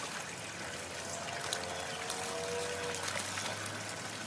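Muddy water splashing and trickling as a Boston terrier moves about in a puddle, with small scattered splashes. A faint wavering tone sounds for about two seconds, starting about a second in.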